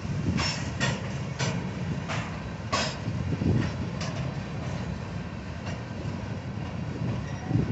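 Freight train's covered hopper cars rolling past: a steady low rumble of steel wheels on rail, with a run of sharp clacks about every half second through the first few seconds that fade after that.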